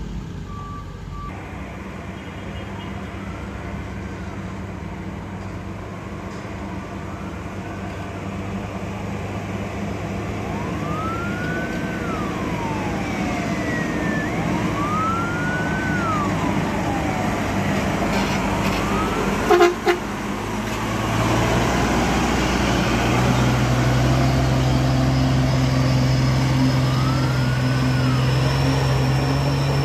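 Heavy diesel trucks labouring up a steep dirt climb, engines running under load, with a rising-and-falling whine that repeats every few seconds. About twenty seconds in there are two sharp bangs close together, and then a truck engine close by becomes louder and steadier.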